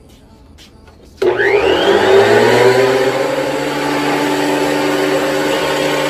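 Benchtop thickness planer switched on about a second in: its motor and cutterhead whine up to speed within a second, then run steadily at full speed.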